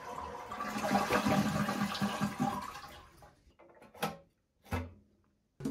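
Toilet flushing, set off by the push-button on top of the tank: a rush of water that dies away about three seconds in, followed by two short sounds.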